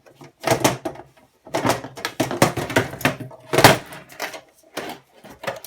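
Thin sheet-metal cover of a DVD player being worked loose and lifted off its chassis: a series of irregular knocks and scrapes of metal.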